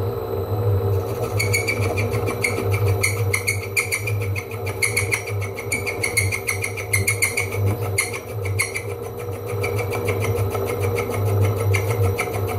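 Holbrook C8 metal lathe running steadily while a high-speed steel tool takes a light cut, about 3 thou, on thin-walled steel tube. From about a second in, the tool squeals a little in a rapid, even pulsing.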